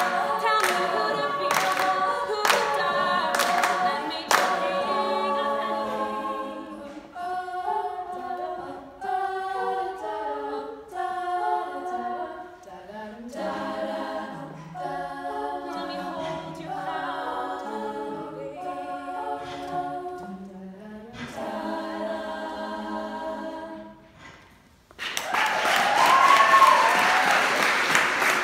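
All-female a cappella group singing, a solo voice over backing harmonies, with the group clapping in time about twice a second for the first four seconds. The song ends, and after a brief pause near the end the audience breaks into applause with a whoop.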